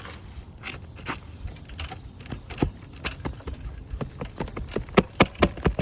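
A hand tool prying and knocking at a stuck roofing nail under a shingle: a series of sharp clicks and scrapes, coming faster and louder toward the end.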